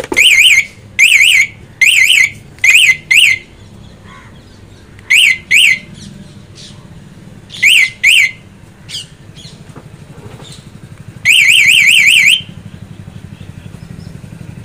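Aftermarket anti-theft alarm on a Honda Dio scooter chirping in short, fast-warbling siren bursts as its remote fob buttons are pressed: single and double chirps over the first eight seconds or so, then one longer warbling burst of about a second near the end.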